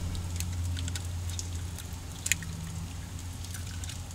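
Raw eggs being cracked by hand over a bowl of ground meat: a few light clicks of eggshell, one sharper about two seconds in, over a steady low hum.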